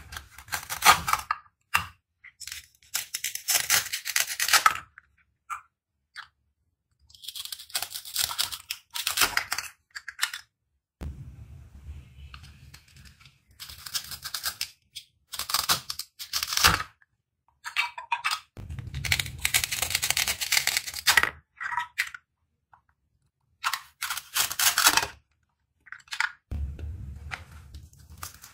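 Velcro tearing apart as a plastic toy knife is pushed through velcro-joined toy fruit halves: a series of separate ripping sounds, each lasting one to three seconds, with silent gaps between them and a few dull knocks as pieces are handled.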